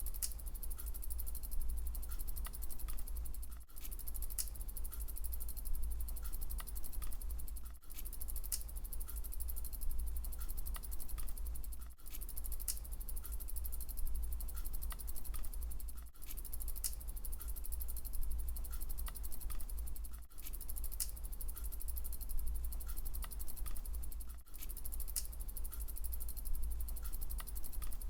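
Bicycle wheel spinning, its freewheel hub ticking rapidly and steadily, with a brief break about every four seconds.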